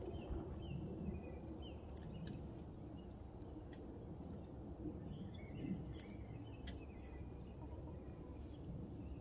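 Small birds chirping in short calls over a steady low outdoor rumble, with a few faint clicks.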